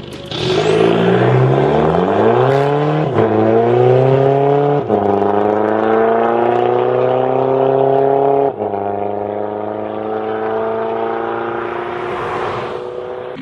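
VW Golf Mk6 GTD's 2.0 TDI inline-four diesel, on a Supersprint exhaust, accelerating hard away from standstill and shifting up three times, the pitch rising with each pull and dropping at each shift. Near the end a car passes close by.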